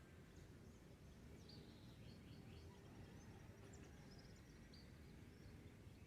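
Faint dawn birdsong: scattered short chirps and a few quick trills from several birds over a low steady rumble.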